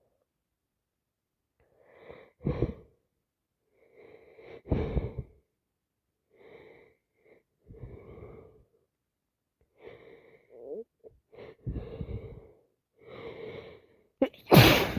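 A person with a heavy cold taking a run of short, wheezy, gasping breaths, then sneezing loudly near the end.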